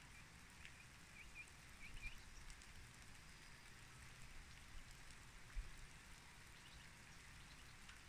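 Faint light rain falling, with a bird giving several short chirps from about half a second to two seconds in.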